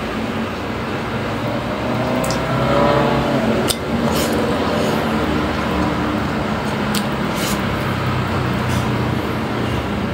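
Steady background engine hum, like road traffic, with a motor whose pitch bends up and down around three to four seconds in. A few short sharp clicks are scattered over it.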